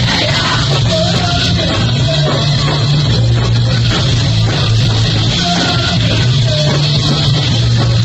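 Live rock band playing loud and without a break: electric guitars over a pounding drum kit, with a heavy, steady low end.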